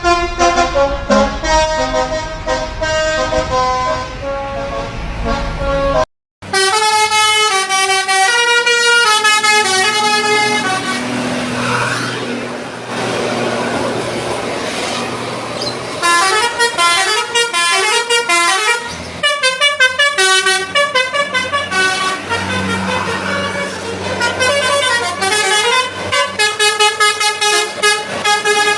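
Indonesian tour-bus 'telolet' basuri multi-tone horns playing quick melodic tunes of stepped notes, one clip cutting to another about six seconds in.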